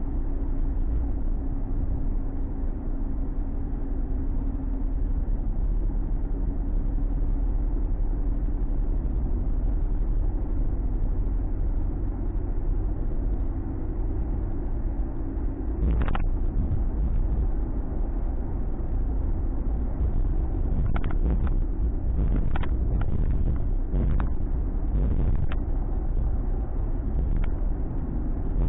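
Ford Mustang driving, heard from inside the cabin: a steady low drone of engine and road noise. There is a sharp click about 16 seconds in, and several short clicks and knocks between about 21 and 25 seconds.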